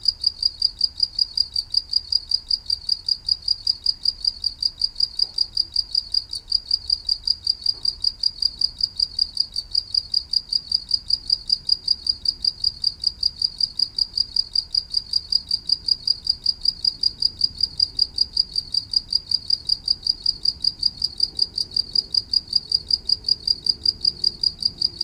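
Cricket chirping steadily, a high-pitched chirp repeated evenly about four times a second.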